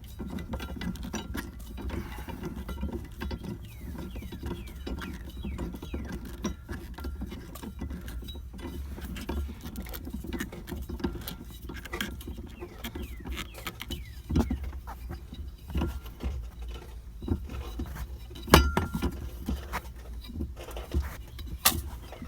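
Spare-tire cable winch under a minivan being cranked by hand: a steady run of light, irregular clicking and rattling from the crank and winch, with one sharper knock about eighteen seconds in.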